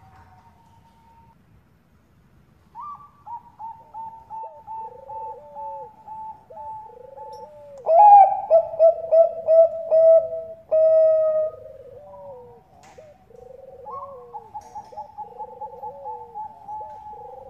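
Zebra doves of the Bangkok-bred perkutut strain cooing in fast runs of short, clipped coos, starting about three seconds in. The loudest run comes near the middle.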